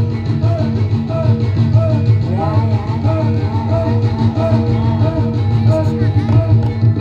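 Live accompaniment music for a Javanese jaran kepang (kuda lumping) dance, with a steady beat and a short melodic figure repeating about twice a second.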